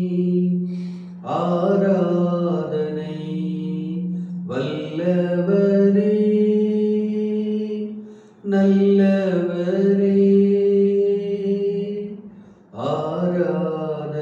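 A man singing a Tamil Christian worship song solo, in long held notes. The notes come in about four drawn-out phrases, each a few seconds long, with a short breath between them.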